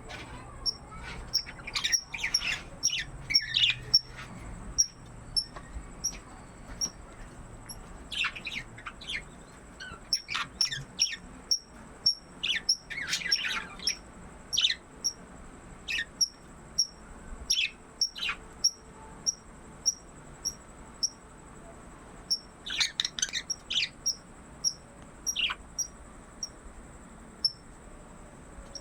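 Pet budgerigars chirping and chattering in short, sharp bursts, with clusters of calls that come and go. Beneath them is a high, evenly repeated peep about twice a second.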